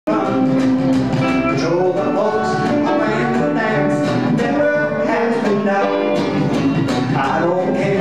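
Live country band playing: electric and acoustic guitars, dobro and upright bass.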